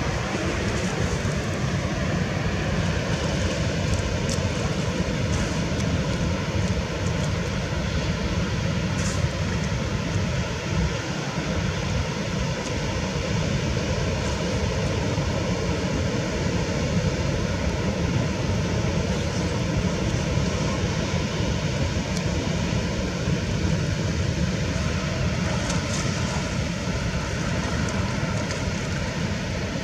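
Wind on the microphone: a steady low rumbling noise.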